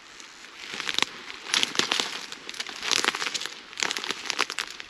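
Dry reeds and grass rustling and crackling in three bursts, about a second apart.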